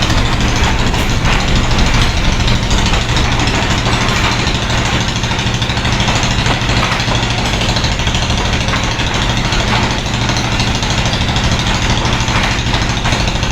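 Pakistan Railways GEU-40 diesel locomotive engine running steadily as the Tezgam Express pulls in: a loud, unbroken low engine drone.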